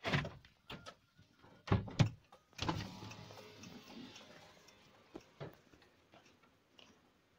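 Handling noises: a few sharp clicks and knocks, then a scraping, rustling sound that starts near the middle and fades away over a couple of seconds, followed by a few faint clicks.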